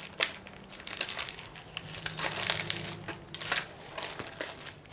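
Hands rummaging through a container of small loose lock pins and parts, with irregular clicks, rattles and crinkly rustling.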